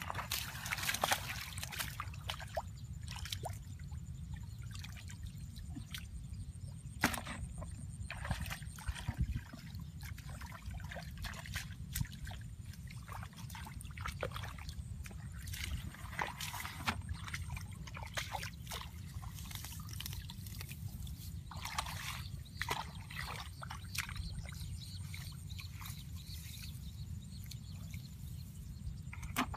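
Hands groping and sloshing in shallow muddy water, with scattered small splashes and trickles, over a steady low rumble.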